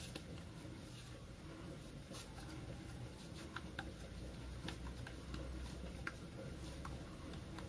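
Faint soft ticks and squishes of hands rolling a ball of warm potato coxinha dough.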